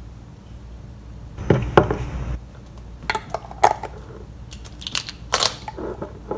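Handling noise while minced garlic is spooned into a plastic oven bag: a short crinkling rustle of the bag, then several sharp clicks and knocks.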